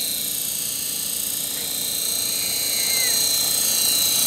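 ESky Belt CP v2 RC helicopter's electric motor and rotors running in flight: a steady high whine that wavers slightly in pitch, growing louder about three seconds in as the helicopter comes closer.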